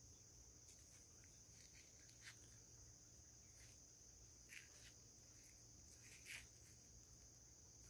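Faint scraping of scissor blades on a heart-shaped naphthalene mothball held in a gloved hand: a handful of soft, short scratches, the clearest about six seconds in, over a steady faint hiss.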